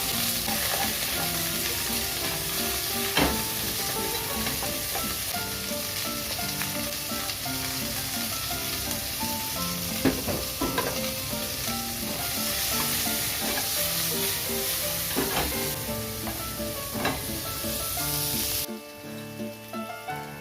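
Food frying in a hot pan, a steady sizzle with occasional sharp clicks of a utensil stirring it, over background music. The sizzle stops suddenly near the end, leaving only the music.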